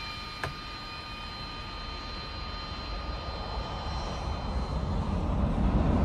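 Jet aircraft engine with a steady high whine, joined by a rumble that builds and grows steadily louder over the second half as the aircraft comes closer.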